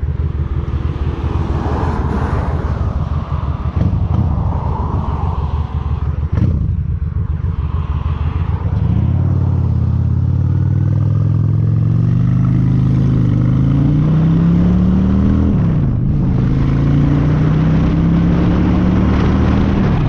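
Honda Shadow cruiser's V-twin engine under way: an uneven low rumble for the first several seconds, then the engine pitch climbs steadily as the bike accelerates, drops briefly at a gear change about sixteen seconds in, and climbs again.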